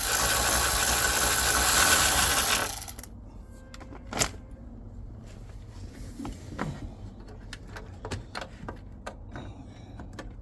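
A loud, steady mechanical noise that cuts off abruptly a little under three seconds in, followed by scattered light clicks and knocks.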